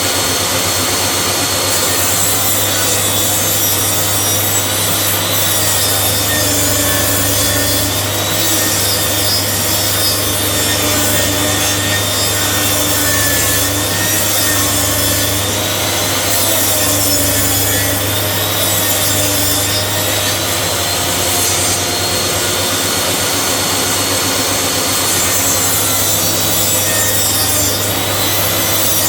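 A saw cutting wood, a steady, unbroken sawing sound that runs without pause.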